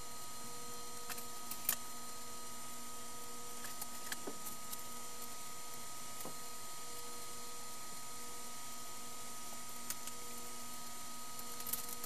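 Steady hum and hiss of running computer equipment, with a handful of faint clicks.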